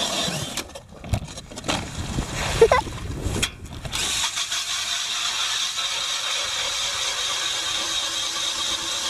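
A 20-volt DeWalt cordless drill spinning a Jiffy ice auger through a homemade adapter, its motor whining steadily as the auger grinds through lake ice. In the first few seconds the steady sound breaks into irregular knocks and scraping, then settles back into a steady whine.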